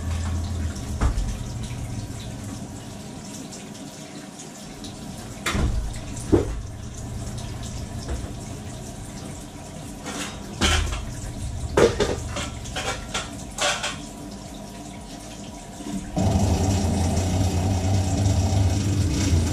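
Water hammer in a boiler room's hot-water piping: a series of sharp knocks and bangs in the pipes, scattered and in small clusters. The plumber suspects the kitchen faucet as the cause. About three-quarters of the way through, a loud steady hum sets in.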